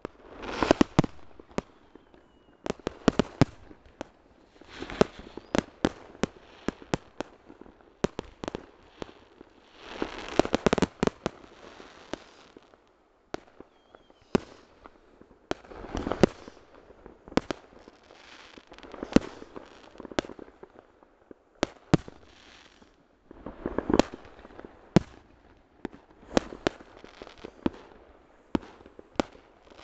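Many fireworks rockets and firecrackers going off: sharp bangs at irregular intervals, with dense clusters of rapid pops lasting a second or two every few seconds.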